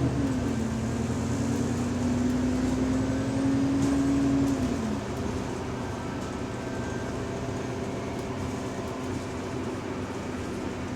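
Bus drivetrain whine heard inside the cabin: a steady tone that dips in pitch at the start, holds for a few seconds, then slides down and dies away about five seconds in, leaving the bus's steady running rumble. It fits the subtle, odd differential noise this bus is noted for.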